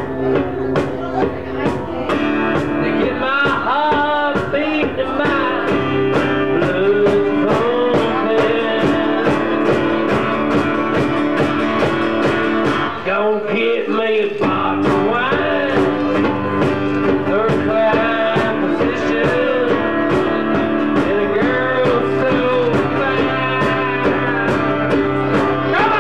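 Live punk-country playing: a strummed acoustic guitar over a steady hand-drum beat, with a wavering, bending harmonica lead carrying the melody in place of vocals. The low end drops out briefly about halfway through.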